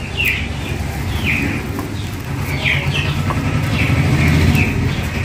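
Birds chirping in short, falling calls repeated every half second or so, over the steady rumble of an idling vehicle engine that grows louder about three to four seconds in.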